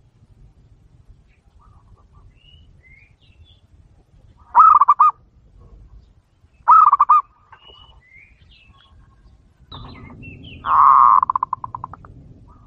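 Zebra dove (perkutut) cooing three times: two short calls of quick rolling notes about two seconds apart, then a longer, louder call near the end that trails off into a fast run of fading notes. Small birds chirp faintly in between.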